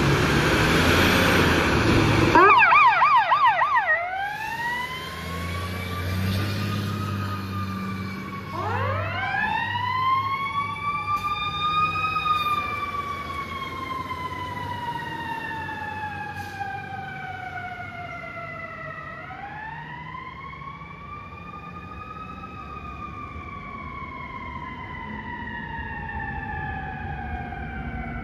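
Fire truck pulling out with its heavy engine noise, then its siren: a brief fast yelp about two and a half seconds in, followed by a wail that rises quickly and slowly falls, wound up again several times and fading as the truck moves away.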